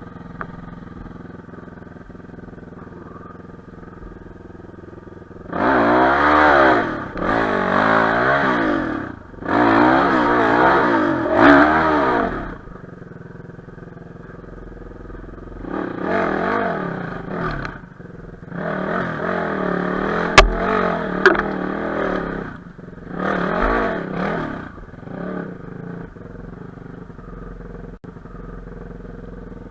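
Enduro motorcycle engine idling, then revved hard in repeated bursts, its pitch rising and falling within each burst, in two spells of several seconds. Two sharp knocks come just after the middle, the loudest moments.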